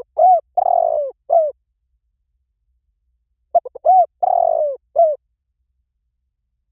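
Spotted dove cooing: two phrases of several short arched coos, each phrase with one longer drawn-out coo in the middle, about three seconds apart. The call is of the style Thai dove keepers call 'liw tan'.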